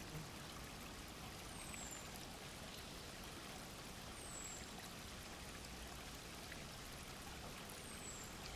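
Faint, steady rushing of a mountain river. Three short, high, falling chirps come through it at intervals of two to three seconds.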